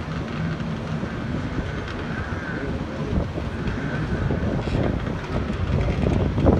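Wind buffeting the microphone over a steady outdoor rumble of surf and distant jet ski engines, with a faint wavering engine whine rising and falling twice.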